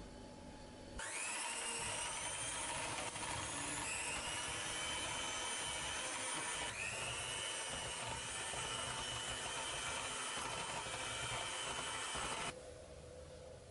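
Electric hand mixer with twin beaters running in a glass bowl, beating butter, sugar and molasses for gingerbread dough: a steady motor whine that winds up about a second in and cuts off near the end.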